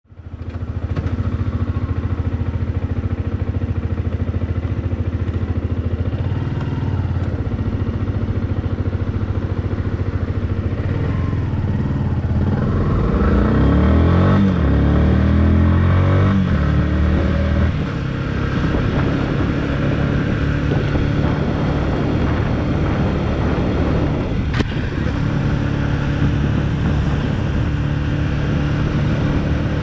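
Motorcycle engine running while riding, its pitch rising as it accelerates around the middle.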